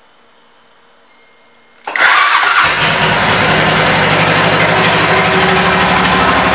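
2006 Suzuki Boulevard C90's V-twin engine, fitted with Cobra exhaust pipes, being started: a faint whir about a second in, then the engine fires loudly about two seconds in and settles into a steady, evenly pulsing idle.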